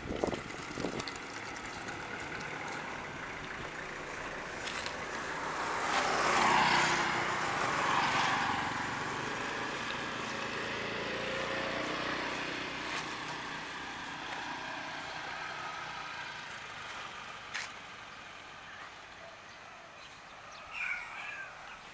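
Honda Scoopy i scooter with a tilting trike kit riding past, its engine running with tyre noise on the road; it is loudest as it passes about six to eight seconds in, then fades. A short high chirp near the end.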